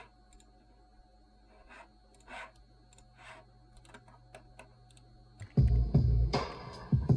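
A few faint computer keyboard clicks, then about five and a half seconds in a sample-based beat starts playing back loudly, with deep bass and punchy drum hits.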